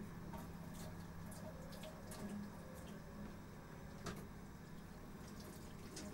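Faint steady room hum with scattered light clicks and knocks from things being handled. The sharpest knock comes about four seconds in.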